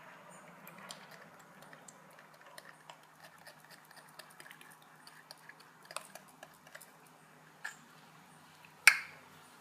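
Faint scattered small clicks and taps from handling slime ingredients and containers, with a louder sharp click near the end.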